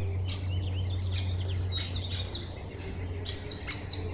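Woodpecker chick begging for food from the nest hole: high-pitched chirping calls repeated in quick runs, over a steady low hum.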